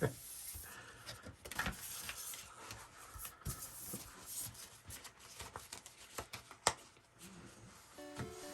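Soft rustling and light clicks of trading cards and foil booster-pack wrappers being handled and flipped through. About eight seconds in, a short run of music notes starts.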